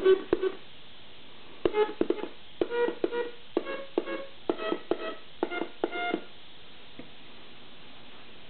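DIY electronic organ kit sounding short electronic notes as its push-button keys are tapped, each note starting with a click. The notes come mostly two to a key and step up the scale over about six seconds, then stop.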